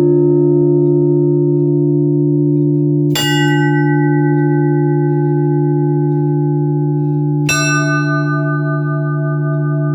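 Orthodox church bells tolled slowly for a funeral: two single strikes about four seconds apart, each struck bell ringing on over the long, humming resonance of the bells already sounding.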